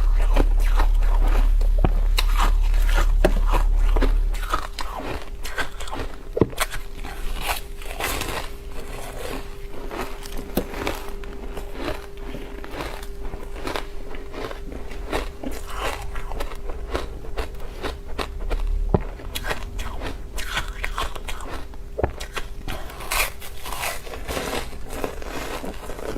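Ice being bitten and chewed close to the microphone: a steady run of sharp, irregular crunches and cracks. A loud low hum runs under the first four seconds and then stops, and a faint steady tone carries on after it.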